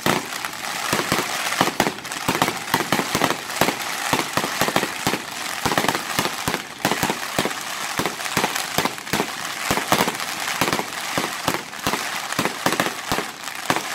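Fireworks barrage: shells bursting in rapid bangs, several a second, over a continuous crackling from crackle stars.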